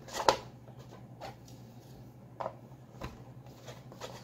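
Hard plastic figure parts and base being handled, giving a few light clicks and taps, the sharpest just after the start and softer ones after.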